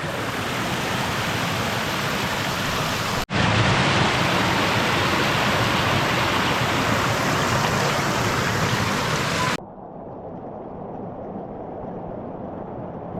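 Rushing water of a creek and small waterfall, a steady hiss. It breaks off for an instant about three seconds in and comes back louder, then drops suddenly to a quieter, duller rush a little past halfway.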